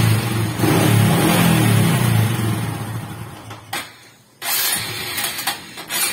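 Honda XRM125 air-cooled single-cylinder four-stroke engine running unevenly, then fading out and dying about four seconds in: it stalls because it will not hold an idle. Clattering metal follows near the end.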